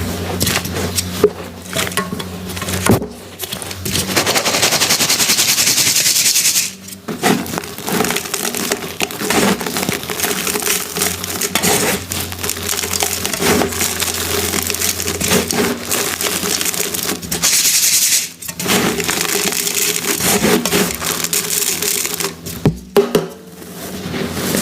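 Reformed gym chalk blocks being crushed: a dense run of crunching and crackling, with two longer stretches of soft, crumbling hiss, one about four seconds in and one near eighteen seconds.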